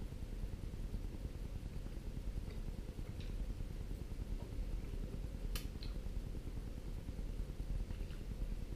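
A man chewing a mouthful of slightly tough turkey with cranberry sauce over a steady low room hum. One sharp click comes a little past halfway, with a few fainter ticks around it.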